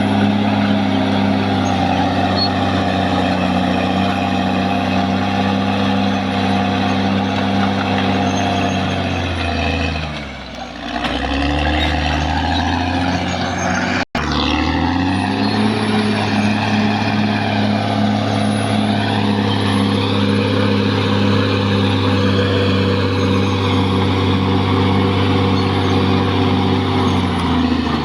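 Caterpillar D6R XL bulldozer's diesel engine running steadily under load. Its pitch sags about ten seconds in and climbs back, and it dips again near the end. There is a split-second break at about fourteen seconds.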